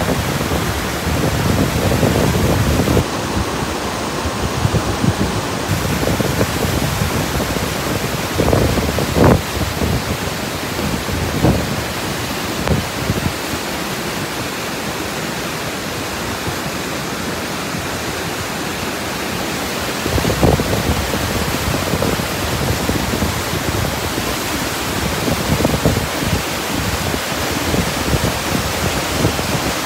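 A tall waterfall's water rushing steadily as a dense, even noise, with brief low gusts surging through it now and then.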